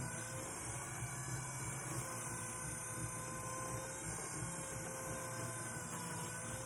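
Electric pottery wheel running at a steady speed, its motor giving a constant hum and whine that wavers slightly in pitch, while wet clay is being centred by hand on the spinning wheel head.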